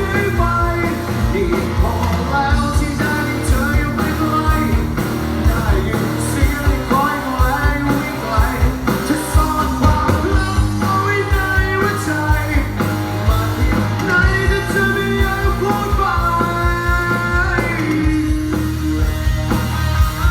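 A live rock band playing with a lead singer: a sung melody over bass, guitar and a steady drum beat.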